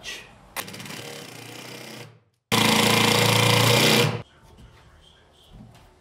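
Cordless impact driver running in two short bursts to drive a screw home: a quieter run, then a louder one of about a second and a half that stops abruptly.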